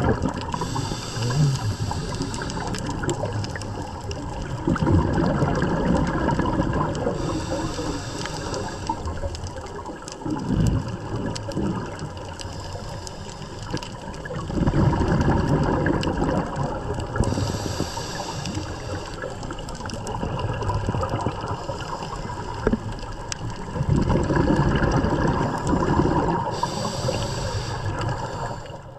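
Scuba regulator breathing underwater: exhaled bubbles rushing and gurgling in three long surges, with a brief hiss of the inhaled breath between them, over a steady underwater hiss.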